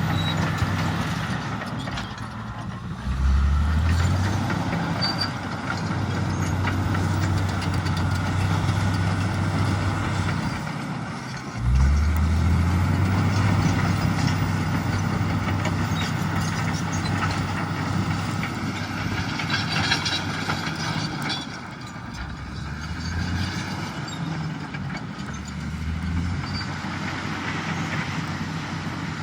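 Komatsu D85EX bulldozer's diesel engine running. It revs up sharply about three seconds in and again about twelve seconds in, holds there, and settles lower about two-thirds of the way through.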